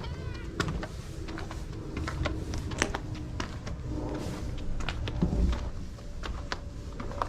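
Irregular light clicks and knocks over a steady low rumble, with a brief wavering high-pitched call at the very start.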